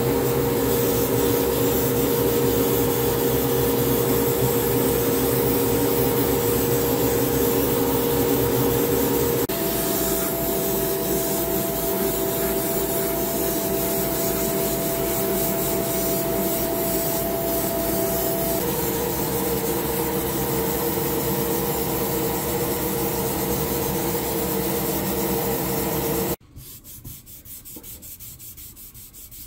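A hobby paint spray booth's extraction fan and airbrush running: a steady whirr with a held hum whose pitch shifts twice at cuts. Near the end it cuts to much quieter hand sanding of a plastic model car body with sandpaper, in repeated rubbing strokes.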